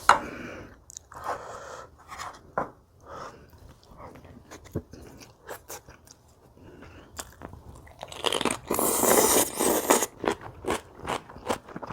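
Close-miked chewing and crunching of kimchi, with many small wet clicks and a louder stretch of crunching about two thirds of the way in.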